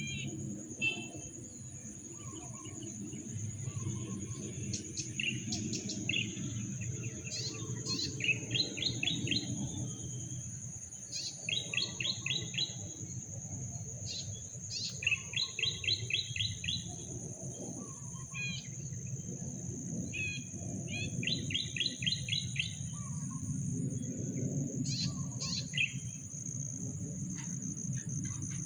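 Birds calling, with short rapid trills repeating every few seconds, over a steady high-pitched insect drone and a low background rumble.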